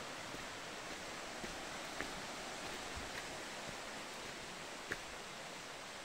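Steady rushing hiss of forest-trail ambience while walking, with two light sharp ticks from steps on the dry, leaf-littered path.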